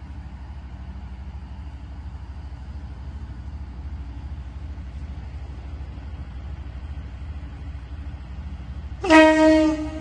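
KiHa 58-series diesel railcar train (KiHa 58 and KiHa 28) pulling slowly into the platform, its diesel engines a low steady rumble. Near the end it gives one short blast of its air horn, about a second long.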